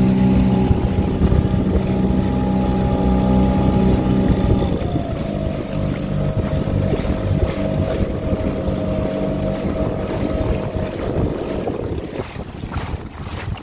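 Small Mercury outboard motor running on a dinghy under way, its pitch stepping down about five seconds in as it is throttled back, then fading away around twelve seconds in. Wind buffets the microphone near the end.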